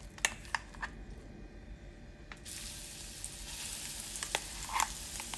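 Coarse-ground garlic and dried red chilli paste going into hot sesame oil in a kadai: a few sharp taps and clicks of the spoon, then about two and a half seconds in a steady sizzle starts suddenly as the paste fries, with a few more clicks of stirring.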